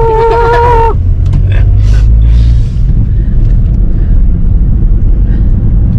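Steady low rumble of road and engine noise inside a moving car's cabin. A held high tone, like a horn, carries on for about the first second and then stops.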